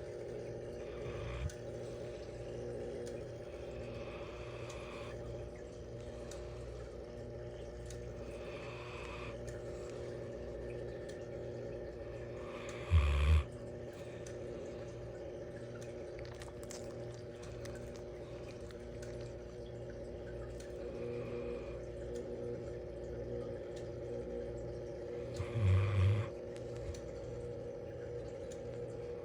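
Bloodhound snoring in her sleep: soft breaths come and go every few seconds, with two short loud snorts about 13 and 26 seconds in, over a steady low hum.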